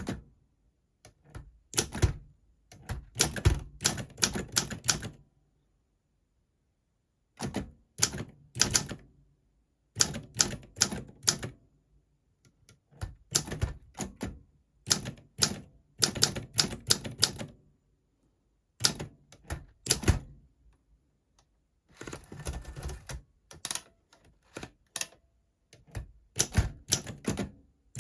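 Olympia SM4 manual typewriter being typed on: runs of sharp key strikes with short pauses between the bursts, and a brief denser rattle about two-thirds of the way through.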